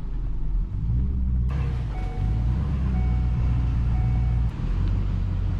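Pickup truck driving slowly, heard from inside the cab with a steady low rumble. Partway through, a short electronic beep repeats three times about a second apart.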